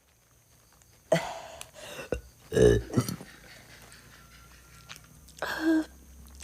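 A girl coughing and retching in three harsh bouts: one about a second in, the loudest and deepest around two and a half seconds in, and a shorter one near the end.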